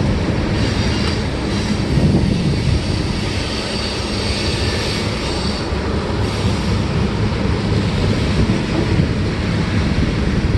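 Freight train cars rolling past: a loud, steady rumble of steel wheels on the rails.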